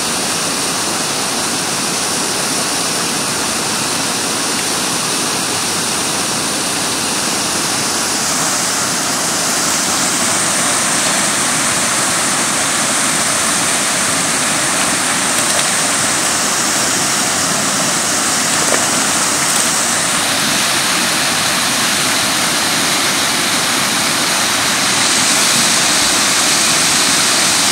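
Small waterfalls cascading over granite into a pool, a steady rush of falling water that grows a little louder near the end.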